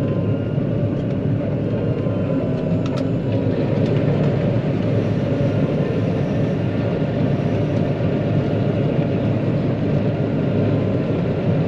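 John Deere 9500 combine running, heard as a steady engine and machinery drone with a faint high whine, and a few light clicks about three to four seconds in.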